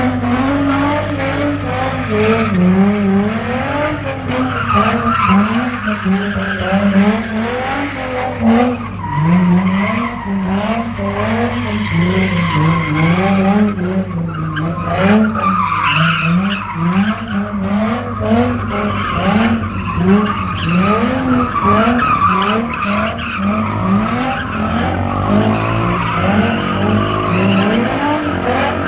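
A car doing donuts: its engine revs up and down over and over, about once every second or two, while the tyres squeal and skid.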